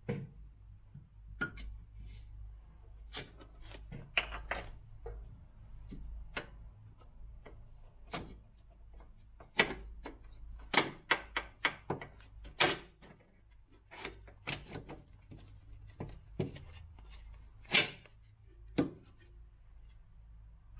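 Irregular knocks and clicks of hand tools and metal parts being handled, with a quick run of sharp clicks about ten to twelve seconds in, over a low steady hum.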